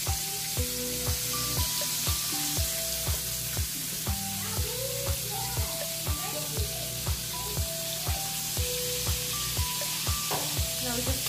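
Fish frying in hot oil in a pan, sizzling steadily. Background music with a steady beat, about two beats a second, plays along.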